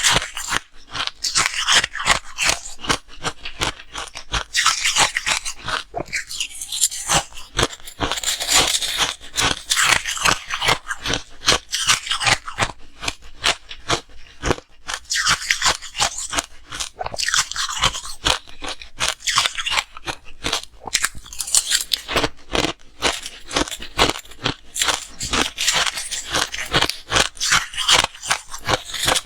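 Ice being bitten and chewed close to the microphone: a continuous run of crisp, crackling crunches.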